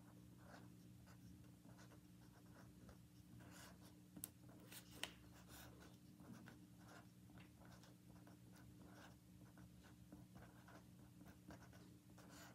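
Faint scratching of a marker writing numbers on paper, stroke after stroke, with two sharper taps about four and five seconds in, over a low steady hum.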